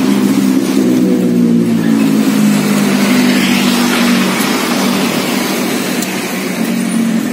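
A motor vehicle engine running close by: a steady hum that sags slightly in pitch and weakens after about four seconds.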